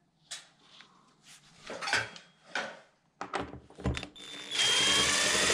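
A few scattered knocks and clicks, then about four and a half seconds in a cordless drill-driver starts running, its pitch sagging and recovering as it drives a screw.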